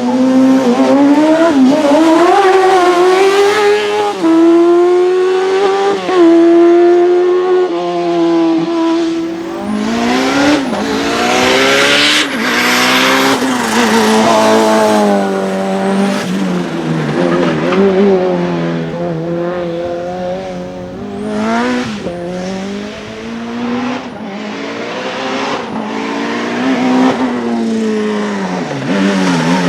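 Race car engine revving hard, its pitch repeatedly climbing and then dropping with gear changes and lifts off the throttle, with some tyre squeal.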